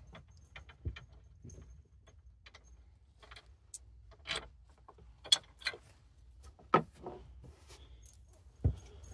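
Scattered metallic clinks and clicks as an aluminium hawse fairlead and its bolts are worked loose and pulled off an ATV winch, with a few sharper knocks in the middle and near the end.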